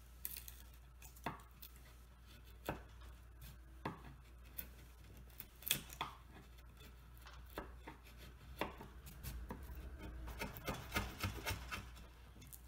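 Wood chisel cutting down through two layers of old mahogany veneer: sharp clicks and cracks about once a second as the blade bites and pieces break away, turning to quicker chipping and scraping in the last few seconds.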